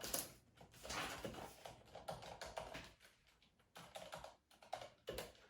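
Keys of a Corsair RGB MK.2 mechanical keyboard with Cherry MX switches being pressed, a quiet, irregular run of key taps and clicks.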